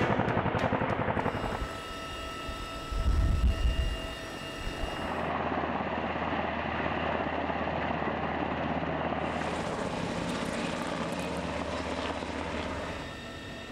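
Helicopter rotors and turbine engines running while the helicopters hover, the sound shifting at several cuts. A loud low rumble comes about three seconds in.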